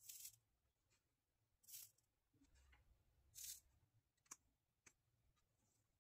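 Faint soldering work: three short hisses as the soldering iron touches the joints, then two sharp snips as side cutters trim component leads.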